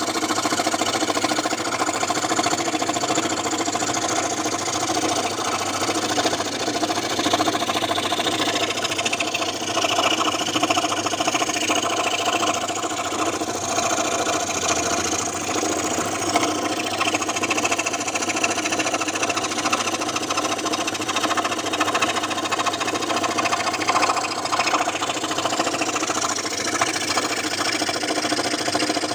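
Scroll saw running steadily, a constant machine hum that does not change in pitch.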